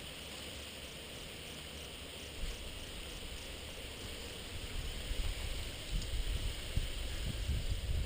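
Outdoor ambience: a steady hiss, with low buffeting rumbles from wind on the microphone growing from about five seconds in.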